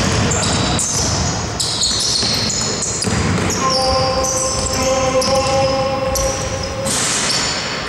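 Basketball game on an indoor court: sneakers squeak over and over on the hall floor while the ball bounces and players' feet thud. A steady held tone sounds for about three seconds through the middle.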